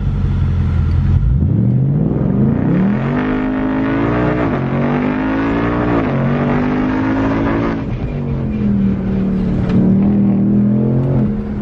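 Ford Mustang Mach 1's 5.0-litre V8 heard from inside the cabin: it starts at low revs, then pulls hard with a rising engine note that drops back at upshifts about four and a half and eight seconds in, then holds a steady note.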